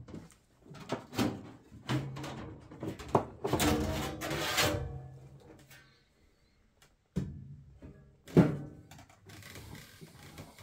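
Sheet-steel side panel of a PC tower case being worked loose and slid off: a run of knocks and clunks, a longer metallic scrape with some ringing about four seconds in, and a sharp clunk about eight seconds in.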